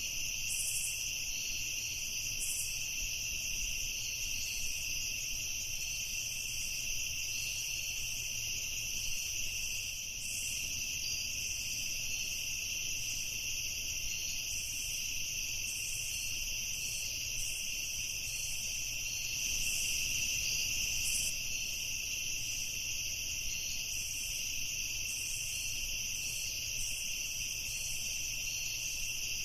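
A dense chorus of crickets chirping steadily at two high, unchanging pitches, with brief higher chirps scattered through it.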